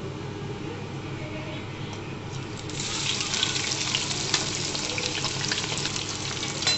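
Whole spices sizzling faintly in hot mustard oil; about three seconds in, sliced onions and garlic drop into the oil and set off a loud, crackling sizzle that keeps going.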